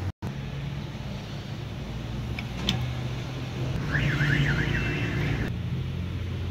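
Steady low engine hum with a couple of light clicks near the middle. About four seconds in, an electronic vehicle alarm's fast up-and-down warble sounds for about a second and a half, then stops.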